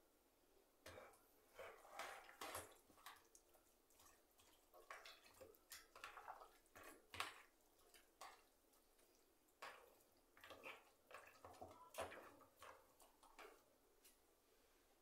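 Faint, irregular water drips and small splashes, with light handling clinks of kitchen work, as when produce is being washed.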